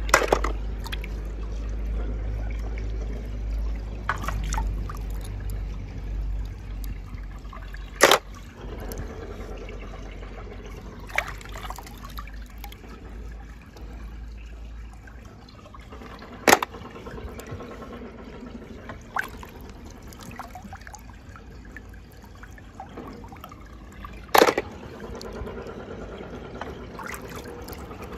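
Water trickling steadily, with a low hum that stops about halfway through. Sharp short knocks come every few seconds, six or seven in all.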